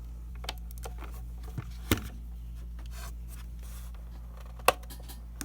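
A few scattered sharp clicks and taps as a power cord and plastic parts are handled, the loudest about two seconds in and another near the end, over a steady low electrical hum.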